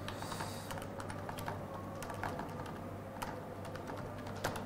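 Laptop keyboard being typed on slowly, a few scattered, irregular keystroke clicks over a low steady hum.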